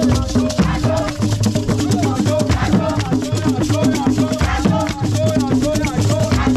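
Ensemble of peg-tuned hand drums played with bare hands in a dense, driving rhythm, with a shaker rattling, hand claps and group singing over the drumming.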